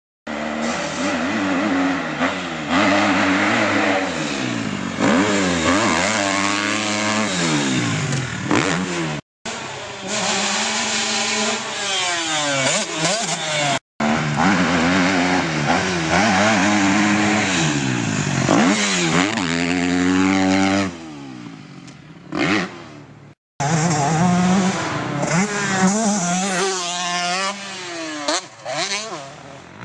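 Motorcycle engines revving, their pitch rising and falling again and again, heard in several short clips joined by abrupt cuts.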